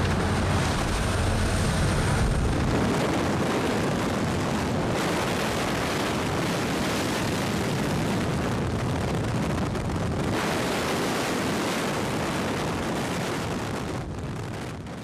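Jump plane's engine and a loud, steady rush of wind at the open door; a low engine hum is strongest for the first couple of seconds, then the wind rush takes over, fading out near the end.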